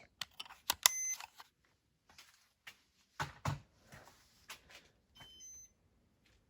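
Two short electronic beeps from the Casablanca ceiling fan's control electronics as it is put into test (demo) mode: one about a second in and a fainter, higher one near five seconds. Sharp clicks and a few soft knocks of the control flap and button being handled come between them.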